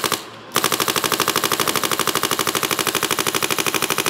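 Bob Long Ripper Victory paintball marker firing a rapid, even string of shots, well over ten a second. It starts about half a second in, after a brief pause.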